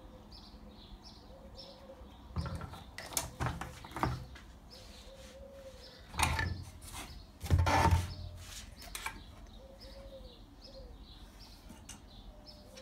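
Knocks and clunks of tools being handled and set down on a wooden workbench, the loudest two about six and eight seconds in, while a small bird chirps over and over in the background, about twice a second.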